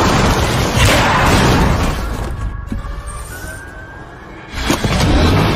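Action-film soundtrack: a loud, dense mix of music and effects that drops away about halfway, leaving a faint rising tone, then comes back with a sudden loud hit shortly before the end.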